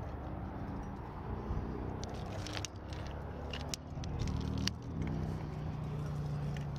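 A motor vehicle's engine droning steadily, its pitch shifting a couple of times, with sharp metallic clicks and jangles from climbing carabiners and a gear rack mixed in.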